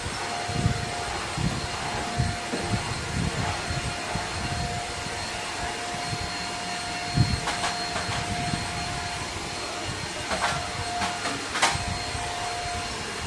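Handheld vacuum cleaner running, its motor giving a steady whine over a rushing airflow noise, with scattered knocks and sharp clicks.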